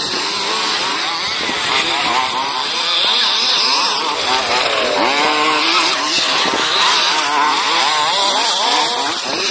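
Several large-scale petrol RC off-road buggies racing, their small two-stroke engines revving up and down over one another without a break.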